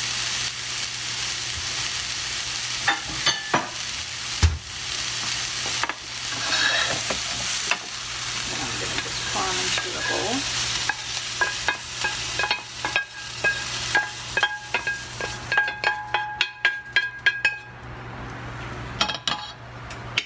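Diced onion and bell peppers sizzling in a nonstick frying pan as they are stirred and scraped out with a wooden spoon into a glass bowl. Rapid taps and clinks of the spoon against pan and bowl come through the second half, and the sizzle dies away near the end.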